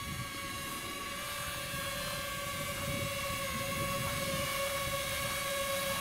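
Small FPV racing quadcopter with four 2306 2400KV brushless motors and 5-inch three-blade props, a steady propeller whine that slowly grows louder as it comes in low to land.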